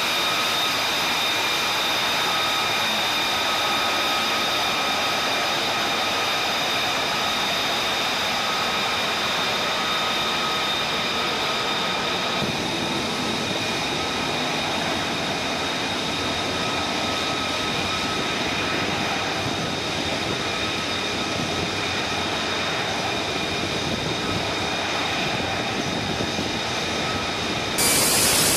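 F-35B Lightning II's F135 turbofan jet engine running: a steady jet roar with a high whine of several steady tones, the whine fading after about twelve seconds. Near the end the roar jumps suddenly louder.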